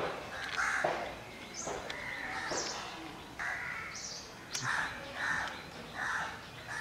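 Crows cawing several times, three calls in quick succession in the second half, with soft scraping and clicking as flattened rice is scooped by hand from a steel plate into a wooden bowl.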